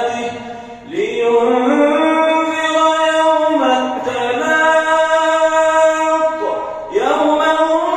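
A man's solo voice chanting Arabic prayer recitation in long, melodic held notes, amplified through a microphone, with short breaks for breath about a second in and again near the end.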